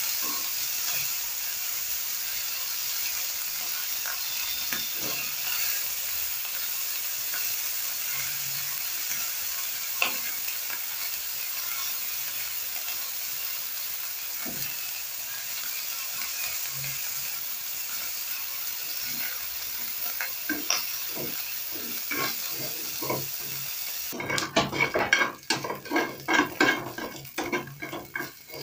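Chicken pieces sizzling in oil in a frying pan, with occasional clicks of metal tongs against the pan as the pieces are turned. Near the end the sizzle drops away and a quick run of tongs clattering and scraping on the pan follows.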